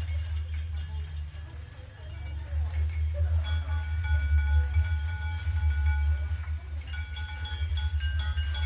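Experimental percussion music: many small metallic jingles and clinks over a deep, steady low drone. From about three seconds in, several high ringing tones sustain together.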